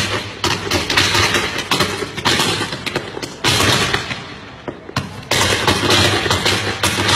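Firecrackers going off in dense, rapid volleys of sharp bangs. Fresh surges start just after the beginning, about three and a half seconds in, and again a little past five seconds, with a brief lull between the last two.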